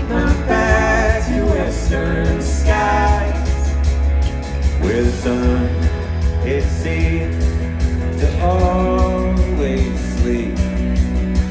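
Live band playing a song, with sung phrases over a steady bass and beat.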